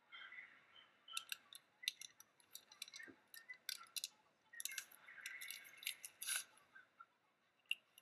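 Paper and vellum handled at close range: faint irregular crackling, rustling and light ticks as double-sided tape liner is peeled off and the vellum is pressed down onto the card.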